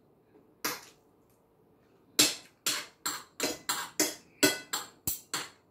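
Metal fork and spoon clinking and scraping against a plate. One stroke comes a little under a second in, then a quick run of about nine at roughly three a second from about two seconds in.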